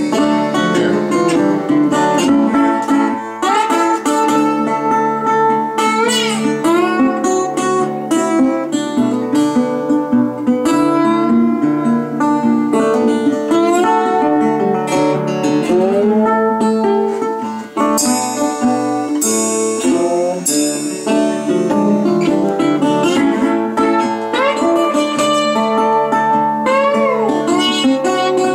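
Live blues band playing an instrumental break between sung verses, led by guitars, with lead notes that bend and glide up and down in pitch.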